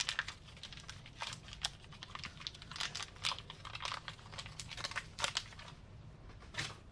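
Scattered light clicks and crinkling from small parts being handled on a workbench, about two or three clicks a second, with a louder cluster of clicks near the end.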